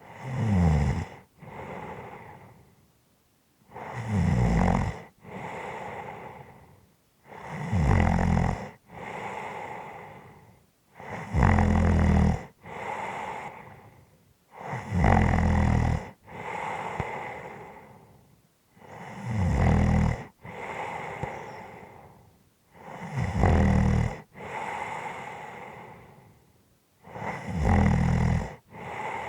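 A person snoring in a steady rhythm: eight loud snores on the in-breath, each followed by a softer out-breath, about one breath every three and a half seconds.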